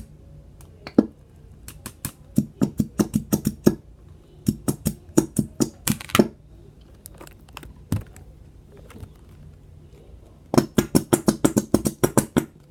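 Rapid bursts of sharp tapping, about six or seven taps a second, as a plastic glue bottle is knocked and tapped to work the last of the glue out, in three runs of a second or two each.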